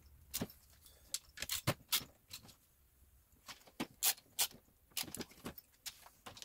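Ratcheting wrench clicking in short, irregular runs of sharp metal clicks as the bolts holding the stool's wheel brackets to its steel tray are tightened.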